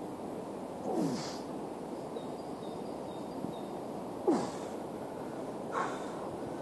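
A man grunting and breathing out hard three times during decline push-ups, each exhale falling in pitch: the sound of straining through the exercise.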